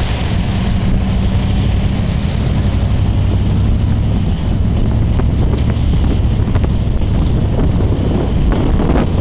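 Truck engine running with a steady low drone while wind buffets the microphone during a towed ride, with scattered brief knocks and rattles.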